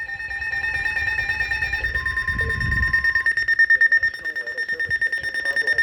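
Electronic alarm tone of an emergency alert broadcast, a steady high-pitched tone pulsing rapidly, sounding for a tornado warning. A lower steady tone joins it briefly about two seconds in.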